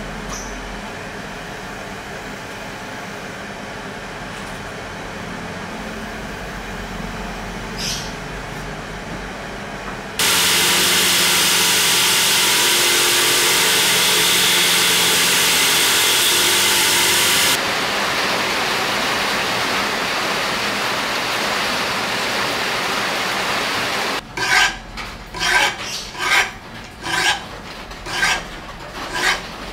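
Sandpaper rubbing on a steel knife blade, a steady scratchy sound; about ten seconds in, an electric belt grinder runs loud and steady for some seven seconds and cuts off suddenly, leaving a softer steady rubbing. Near the end, a file rasps across the blade in even strokes, a little more than one a second.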